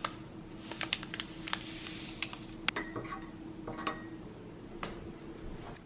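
Scattered light clicks and clinks of small hard objects being handled, a dozen or so sharp ticks at uneven intervals, over a steady faint hum.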